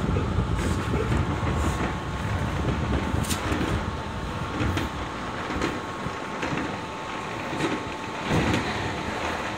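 Meitetsu commuter train running, with a continuous rumble and wheel noise heard from inside the passenger car and a louder swell about eight seconds in.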